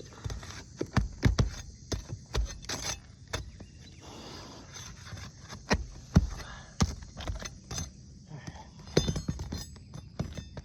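Irregular knocks, clicks and scrapes of asphalt roof shingles being worked loose with a hand tool. The sealant strips are being broken and the shingles are starting to tear and crack, a sign that this hail-damaged roof cannot be repaired.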